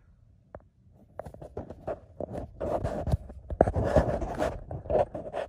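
Rustling and scraping of a person crawling under a vehicle on a concrete garage floor: a run of irregular scuffs and clicks, thickest about three to four seconds in.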